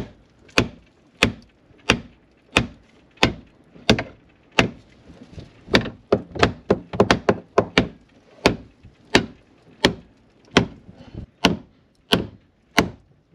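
Hammer striking wood in a steady rhythm, about three blows every two seconds, with a quicker run of lighter taps in the middle.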